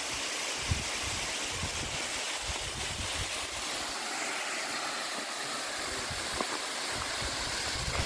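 Mountain waterfall rushing with a steady hiss of falling water, with irregular low buffeting on the microphone underneath.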